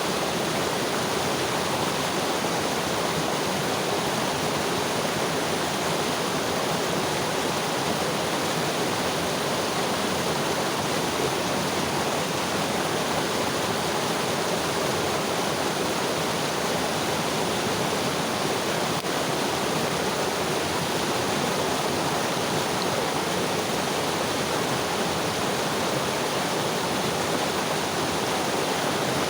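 Mountain river water rushing and splashing over rocks, a steady, even sound.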